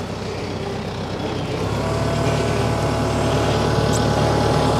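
Tractor engine running steadily, its note growing louder and fuller about two seconds in as it takes on more throttle or load.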